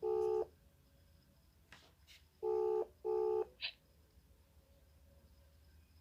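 Ringback tone of an outgoing video call, still waiting to be answered: a double ring of two short beeps, then a pause, then another double ring about two and a half seconds in, with a brief blip after it.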